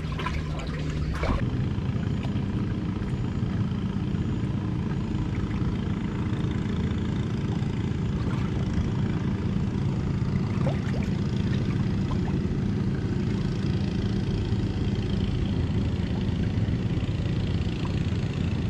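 An engine running steadily at an even, low pitch, with a couple of short knocks in the first second or so.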